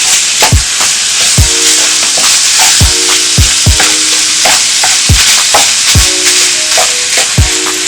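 Minced beef sizzling and frying in hot oil in a pan while it is stirred, a steady hiss. Background music with a regular beat plays over it.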